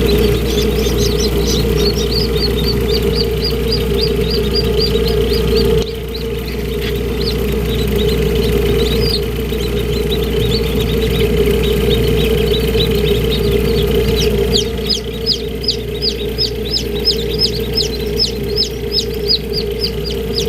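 Newly hatched chicks peeping in quick runs of short, falling, high-pitched peeps, about five a second, easing off in the middle and picking up again near the end. Under them runs a steady hum from the incubator.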